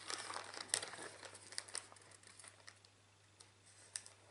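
Paper rustling and crinkling as a paper craft cutout is picked up and handled. It is busiest in the first second and a half, then thins to a few light rustles.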